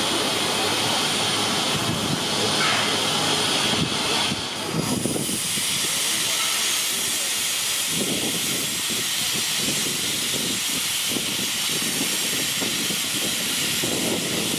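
Steam hissing steadily from standing steam locomotive 3016, a NSW 30 class tank engine. The lower part of the hiss drops away about five seconds in, leaving a thinner high hiss.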